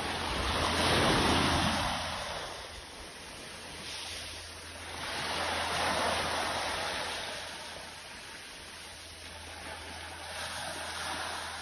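Small waves breaking at the shoreline and washing up over the sand in a hiss of surf. They swell loudest about a second in and again around six seconds, with a smaller swell near the end.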